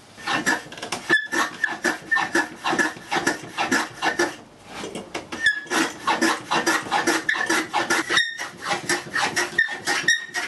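A hand tool working wood in quick, rasping back-and-forth strokes, about three a second, with a few short pauses.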